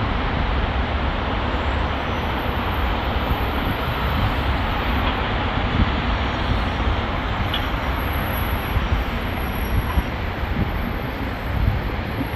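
Steady outdoor noise with a heavy low rumble and a hiss. There are no distinct events in it.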